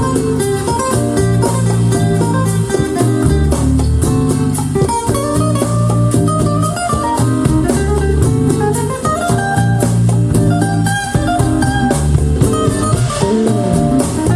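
Jazz-fusion music played back through KEF Q11 loudspeakers: a guitar melody over a busy bass line and a drum kit.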